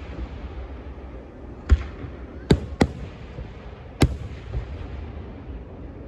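Fireworks going off: four sharp bangs, the first about two seconds in, then two in quick succession, and a last one about four seconds in.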